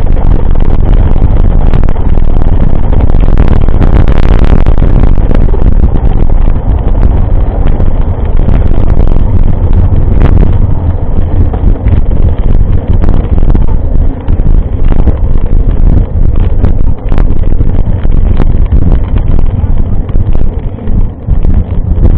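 Heavy wind buffeting on the microphone of a camera riding along on a mountain bike, with scattered knocks and rattles.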